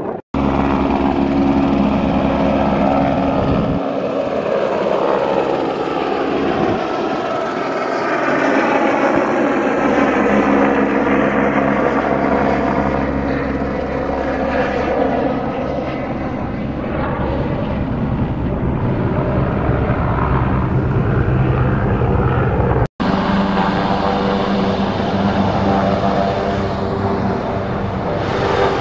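Helicopter flying overhead: the turbine and rotor run steadily, and the tone sweeps slowly as the helicopter passes. About 23 s in, the sound cuts abruptly to another helicopter running with a steady high whine.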